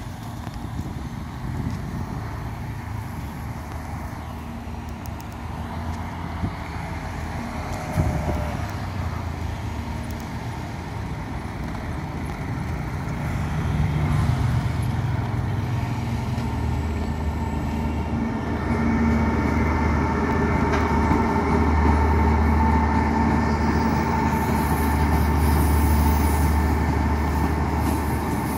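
A China Railway HXD3C electric locomotive and its passenger coaches approaching and rolling past on station tracks as the train arrives: a low rumble swells from about halfway and grows loudest in the last third, where a steady whine rises above it. A single sharp knock sounds about a third of the way in.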